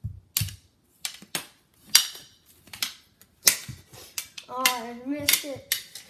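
Plastic knee-hockey sticks clacking against each other and the puck in quick, irregular strikes during a scramble for the puck. A child's voice calls out over the clacks during the last second and a half.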